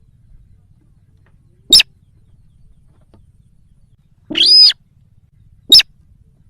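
Sintar rice-field bird lure call: three sharp, high-pitched calls, two of them very short and one longer call in the middle, repeated at intervals of about one to three seconds.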